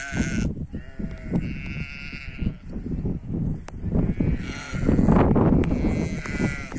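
Sheep and lambs bleating: several long, drawn-out calls that overlap, some higher-pitched. A low rumble on the microphone grows louder about five seconds in.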